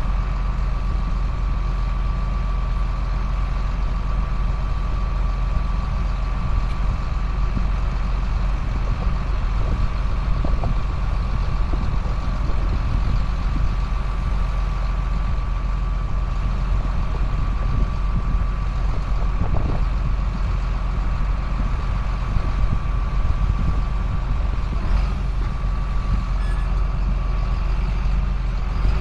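Steady low drone of a 2005 John Deere self-propelled sprayer running, with a thin steady whine above it that shifts about 25 seconds in.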